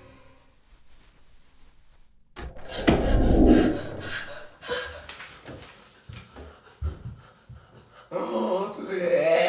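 Horror film sound: a sudden loud, deep bang a little over two seconds in, then scattered knocks and thuds among panting breaths, and a pitched, wavering cry rising near the end.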